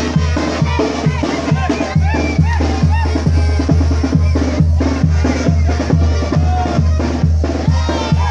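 Band music with a steady bass-drum beat, about two beats a second, and melody lines sliding up and down over it, with voices mixed in.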